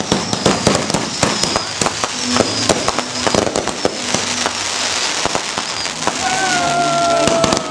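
Fireworks and firecrackers going off in a dense, irregular run of sharp pops and crackling, with thin high whistles sliding down through it. A longer, slowly falling whistle comes in near the end.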